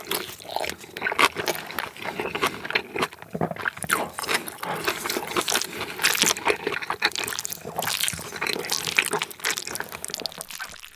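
Close-miked wet chewing and mouth sounds of a person eating tuna-mayo rice, mixed with chopsticks stirring the soft, wet mixture in a bowl, a dense run of small clicks and squelches.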